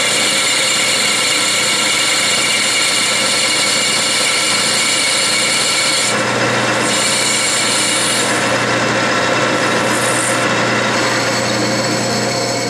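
Clausing metal lathe running under power feed, its turning tool cutting a brass bushing: a steady machine whine with many fixed tones over the hiss of the cut.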